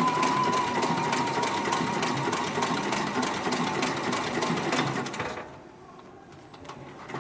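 Heavy-duty 204-102 MD decorative-stitch sewing machine running, stitching with a fast, even clicking. It goes much quieter about five and a half seconds in and picks up again near the end.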